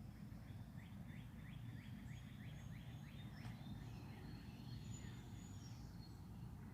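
Songbirds singing outdoors: one bird gives a run of about nine quick repeated notes, roughly three a second, over a steady low background rumble. A few thin high notes from other birds come in around it.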